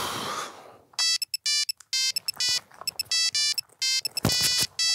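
Mobile phone ringtone: a quick melody of short, bright electronic notes that starts about a second in and keeps repeating, after a brief rush of noise at the start.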